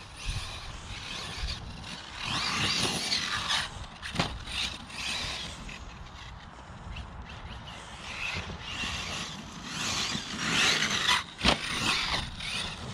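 Arrma Mojave RC truck's electric motor whining in two full-throttle runs, about two seconds in and again about ten seconds in, with its tyres scrabbling over grass. Each run ends in a sharp knock.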